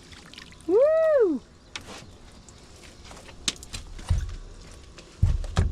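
A person's loud whoop, "Woo!", rising then falling in pitch, about a second in. Then scattered clicks and a few low thumps near the end, as the landed catfish is handled in the boat.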